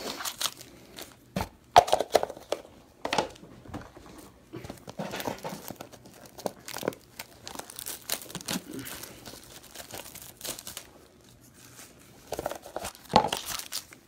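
Plastic wrapping on trading-card boxes crinkling and tearing as it is handled and pulled off, in irregular crackly bursts.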